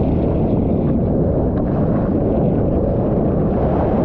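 Strong wind buffeting the microphone, a steady low noise.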